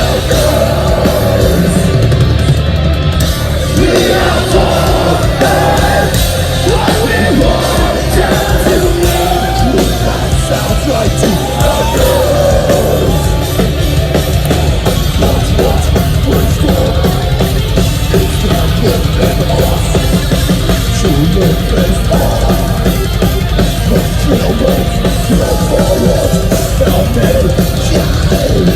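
Metalcore band playing loud, heavily distorted rock with drums and yelled vocals over the first half; about halfway through the drumming turns fast and dense.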